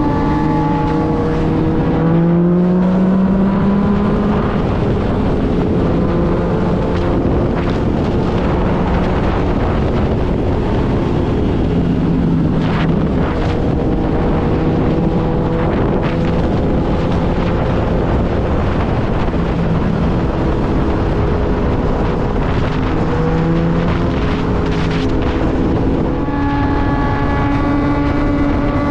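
2016 Yamaha FZ-09's three-cylinder engine running under way, with heavy wind noise on the microphone. The engine pitch rises about two seconds in, then holds and shifts with the throttle.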